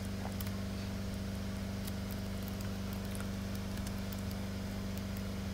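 Steady low electrical hum of the recording setup, with a few faint clicks now and then.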